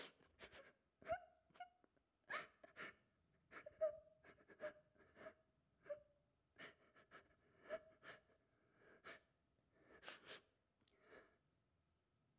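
Quiet sobbing and sniffling: irregular gasping breaths, with brief whimpering cries caught in some of them, dying away about a second before the end.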